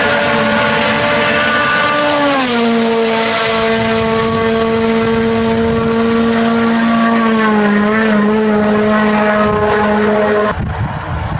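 Rally car engine held at high revs. Its pitch drops about two seconds in, as a passing car's does, then holds steady, dips again around eight seconds and breaks off suddenly near the end.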